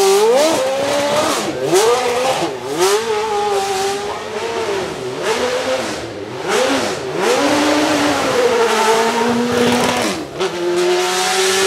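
Judd EV 3.5-litre V8 of a Leyton House March Formula One car. It is revved in quick blips, the revs swooping up and falling back again and again. After about ten seconds it is heard running steadily under power as the car drives along the course.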